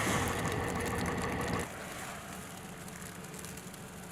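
Steady outdoor background noise with a faint engine-like hum, which drops suddenly to a quieter hush about a second and a half in.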